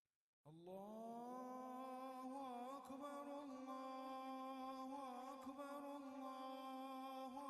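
A voice singing or humming one long, held note in a chant-like style. The note slides up at its start about half a second in, then holds steady with small wavers.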